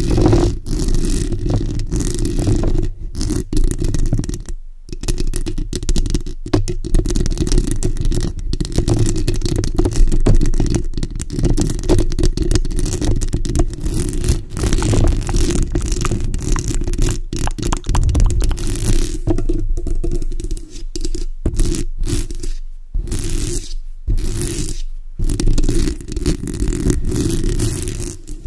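Long acrylic fingernails scratching and rubbing directly on the bare metal mesh grille of a Blue Yeti microphone. It is a dense, continuous scratchy rumble with a heavy low end, broken by a few short silences where the hands lift off.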